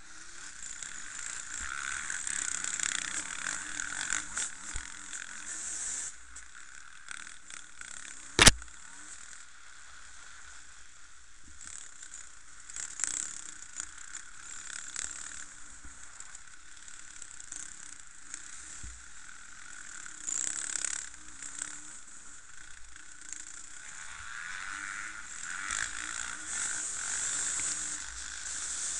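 Dirt bike engines on an enduro course, their pitch rising and falling as the riders work the throttle. A single sharp knock sounds about eight seconds in.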